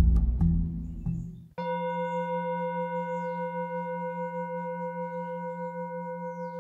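Background music fades out over the first second and a half, then a steady ringing tone, like a sustained singing bowl, starts suddenly and holds with a slight wobble. It is the tone that accompanies the breath-hold phase of the exercise.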